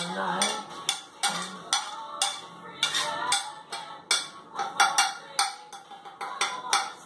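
A metal fork scraping and tapping against a plate, about three strokes a second, pushing marinade off the plate.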